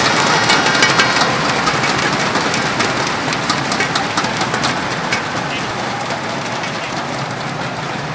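Large arena crowd: many inflatable thundersticks clattering with a mass of voices, the clatter thickest at first and slowly dying down.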